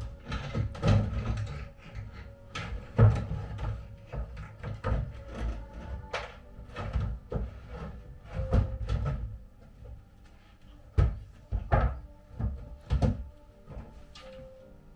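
Loose wooden shelf boards being lifted out of a wall-mounted wooden display unit: irregular knocks and clunks of wood on wood, a dozen or so, with the loudest about three seconds in and near the end.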